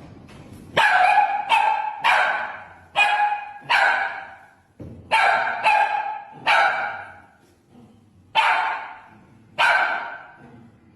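A dog barking repeatedly, about ten loud barks, several coming in quick pairs, each trailing off briefly.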